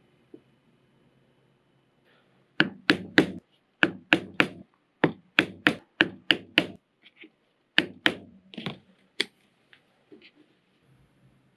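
A mallet striking a toothed stitching chisel (pricking iron), driving it through layered leather to punch stitching holes. Sharp knocks in quick runs of three to six, about three a second, with short pauses while the chisel is moved along.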